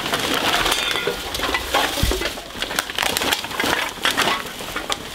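Plastic garbage bags crinkling and rustling as they are grabbed and shifted, with scattered sharp clicks and knocks from loose trash among them.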